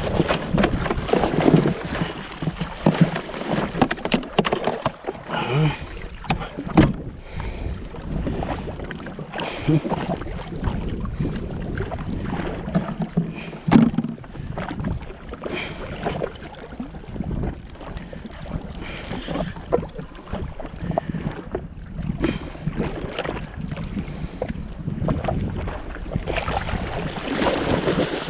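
Wind buffeting the camera microphone and water noise around a jetski on the open sea, with scattered knocks and bumps, the sharpest about 7 and 14 seconds in.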